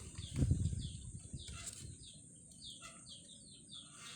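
Small birds chirping outdoors in quick, repeated short notes, with a brief low rustle about half a second in.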